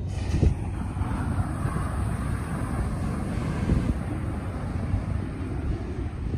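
Wind buffeting the microphone, an uneven low rumble over a steady rushing noise.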